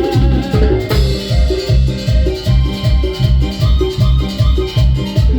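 Live band music with a steady, bouncing bass and drum beat and a melody line, in an instrumental break between sung verses.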